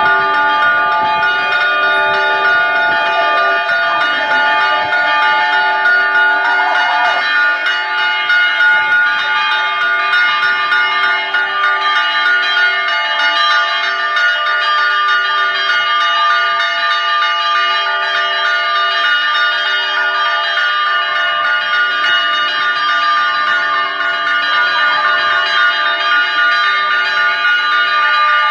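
Church bells ringing steadily, several bell tones overlapping without a break.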